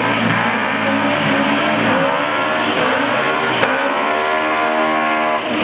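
VW drag-car engines revving hard at the start line, with tyre squeal from a burnout. The engine note climbs in pitch again and again, with a sharp click about three and a half seconds in.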